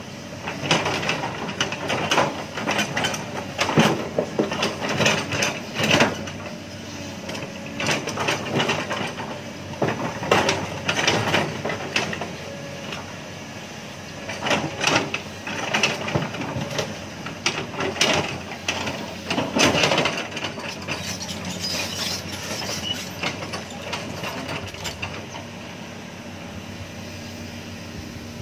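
Komatsu hydraulic excavator at work: engine running steadily under irregular metallic clanks and knocks.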